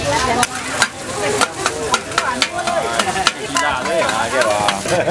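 Metal spatula clacking and scraping on a flat steel griddle in quick, irregular strokes, with food sizzling underneath. Voices chatter throughout.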